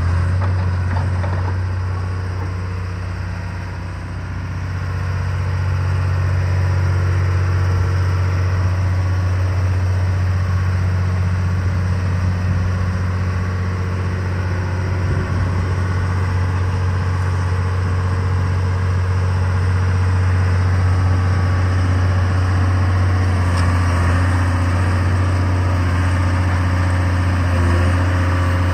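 125B tracked excavator's diesel engine running steadily as the machine works, a strong low drone that dips a little about four seconds in and then picks back up.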